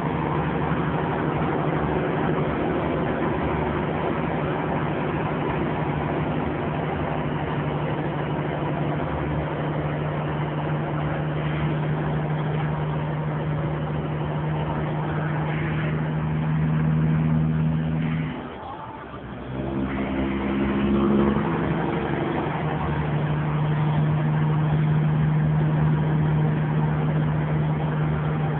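Kenworth semi-truck's diesel engine pulling steadily up a mountain grade, heard from inside the cab. About nineteen seconds in, the engine note drops away for about a second during a gear change, then comes back at a different pitch and settles.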